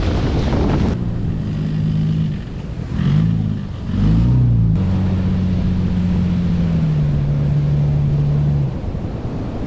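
Toyota Hilux engine straining to drive the ute out of soft beach sand where it is bogged. The revs rise and fall twice, then it holds a steady drone. It opens with about a second of water splashing as the ute drives through shallows.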